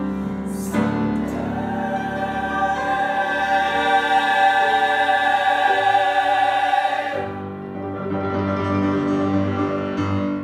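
Mixed choir with grand piano holding a long, loud final chord. About seven seconds in the high voices release, and a softer, lower chord sounds on to the end.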